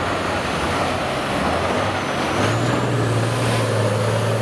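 Diesel engine of a Tatra 6x6 trial truck working hard, pulling through deep mud under heavy throttle. Steady low engine note that rises a little about halfway through, with a thin high whine climbing alongside it.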